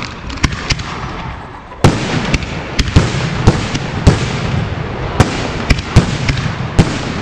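Aerial firework shells bursting overhead in a rapid string of sharp bangs, which thickens about two seconds in, with a steady hiss between the bangs.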